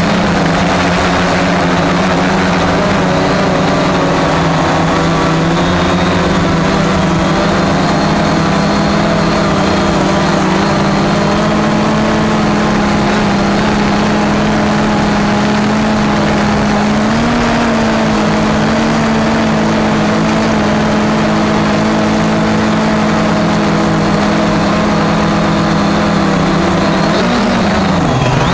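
Cheerson CX-20 quadcopter's motors and propellers running with a loud, steady hum. The pitch lifts briefly about two-thirds of the way through, then dips and wavers near the end.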